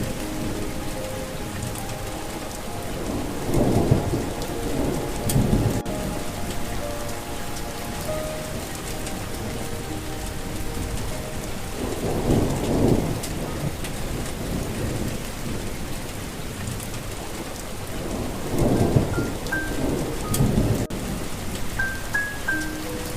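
Steady rain with thunder rumbling three times: about four seconds in, around the middle, and again near the end. A faint melody of soft held notes plays underneath.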